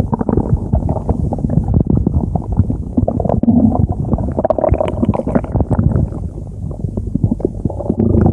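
A stomach growling and gurgling without pause, full of quick crackles, a little brighter around the middle.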